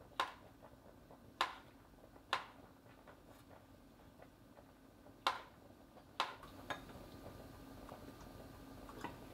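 Kitchen knife slicing cherry tomatoes on a wooden cutting board: about six sharp knocks of the blade meeting the board at uneven intervals, with a few fainter taps.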